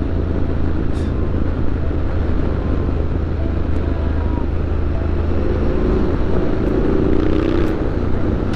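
Triumph Street Scrambler 900's parallel-twin engine running steadily through an aftermarket Zard exhaust while cruising, heard from the rider's position with wind rushing past.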